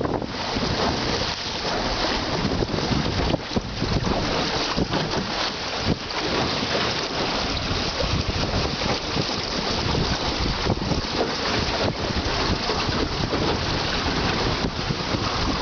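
Wind buffeting the microphone in gusts, over the rush and splash of choppy waves along the hull of a Drascombe Lugger sailing in 10–15 knots of wind. No engine is heard.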